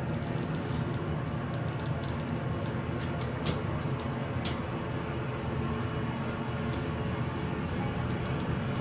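Passenger elevator car travelling, a steady low rumble, with two faint clicks near the middle.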